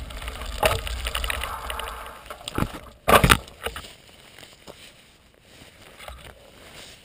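Mountain bike rolling on a gravel road with wind rumbling on the camera microphone as the bike slows to a stop. A loud, brief noise about three seconds in, then only faint clicks once the bike has stopped.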